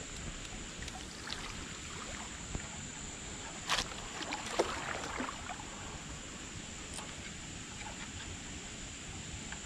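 Brief splashing and sloshing of river water about four seconds in, around a landing net dipped in the shallows.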